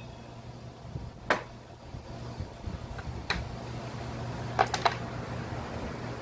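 Metal clicks and knocks of tools and engine parts being handled as a brush cutter engine is taken apart: one knock about a second in, another around three seconds, and a quick run of three or four clicks near five seconds, over the steady hum of an electric fan.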